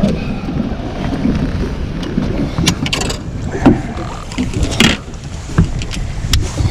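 Knocks and splashes as a big northern pike thrashes while being landed in a small fishing boat, over a low rumble of wind on the microphone.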